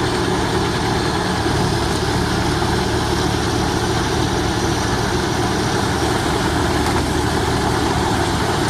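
A large machine's engine running steadily at a constant speed, with no revving or breaks.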